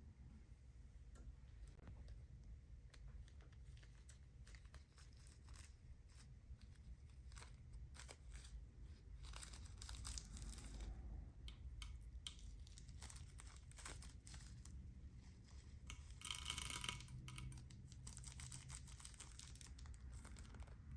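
Faint crinkling, crackling and small clicks of slime-making materials being handled, with a louder crinkly stretch near the end.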